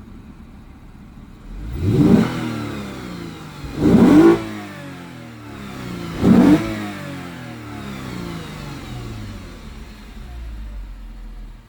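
Lexus GS350 F Sport's 3.5-litre V6 idling and blipped three times, each rev rising and falling in under a second. With the stock exhaust it is quiet: the revs come through as mostly intake sound from the aftermarket Takeda intake.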